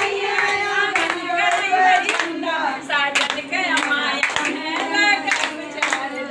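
A group of women singing together while clapping their hands in a steady rhythm, about two claps a second.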